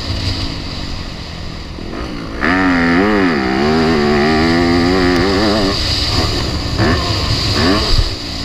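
Four-stroke motocross bike engine revving up and down as the throttle is worked, its pitch rising and falling over and over. It is quieter for the first two seconds or so, then much louder.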